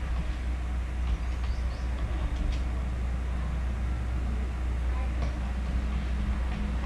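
Steady low background rumble, with a few faint clicks of computer keyboard typing now and then.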